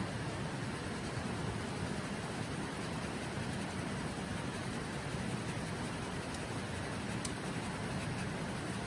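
Steady rushing of a shallow river over stones, with a few faint crackles from a wood campfire.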